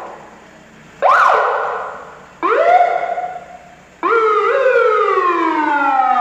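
Ambulance siren heard from inside the cab, sounded in three short blasts. Each jumps up in pitch and then slides down, and the last is the longest. The siren is being tested during a pre-shift vehicle check.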